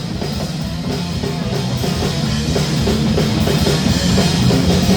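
Live punk rock band playing an instrumental passage: distorted electric guitar, bass and drum kit, without vocals, slowly building in loudness.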